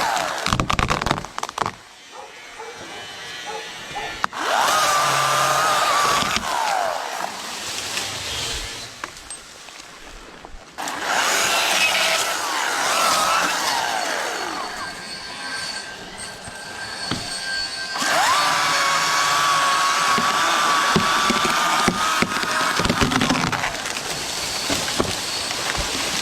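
Chainsaw cutting through a tree trunk, running at full throttle in bursts of a few seconds and dropping back to a lower, quieter running between them.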